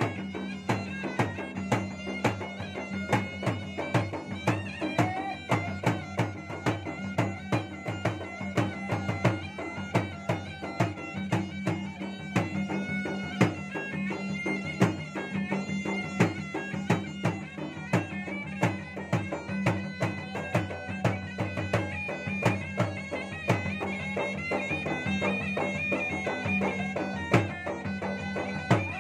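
Traditional Makassarese ensemble music: a pair of ganrang (gendang) drums beaten with hand and stick in a fast, dense rhythm, under the continuous, unbroken reedy melody of a puik-puik double-reed pipe.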